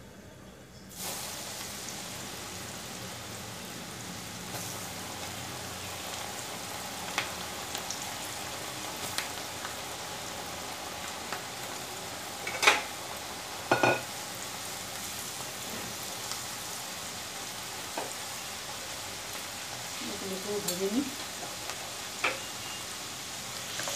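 Spice-and-flour-coated okra slivers deep-frying in hot oil in an aluminium kadai: a steady sizzle that starts suddenly about a second in as the okra goes into the oil. Two sharp knocks come about halfway through, with a few lighter ticks.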